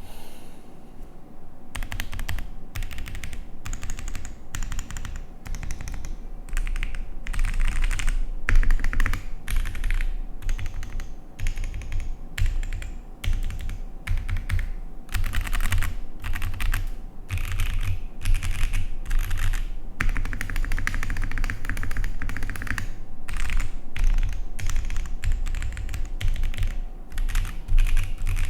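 Continuous typing on a GOK 7V 75% mechanical keyboard with Gazzew Boba U4T 68g tactile switches on a polycarbonate plate with plate foam, PCB-mounted with flex cuts, and JTK Zen keycaps. The keystrokes come in quick irregular runs with brief pauses and get going about two seconds in.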